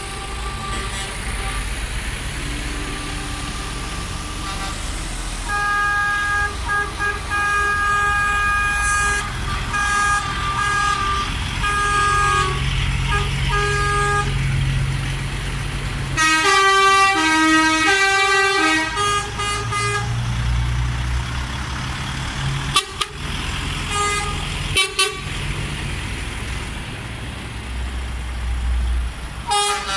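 Convoy of diesel lorries rolling slowly past with engines running, sounding air horns: short repeated toots for several seconds, then a louder horn blast with several changing notes about halfway through, and more honking starting near the end. Two short sharp knocks come in the later part.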